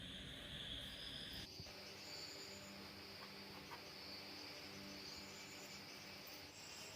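Faint, steady high-pitched chirring of crickets, with a faint low hum beneath.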